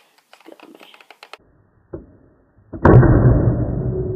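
Nerf Mega Magnus dart blaster firing: a few light clicks of handling, then about three seconds in a sudden loud blast that trails off into a deep, drawn-out rumble with a low steady hum. The audio is slowed down along with the slow-motion footage.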